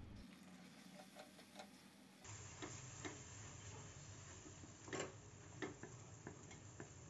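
Faint, irregular taps and scrapes of a wooden spatula against a steel kadai as fried onions and ground spices are stirred, the loudest tap about five seconds in.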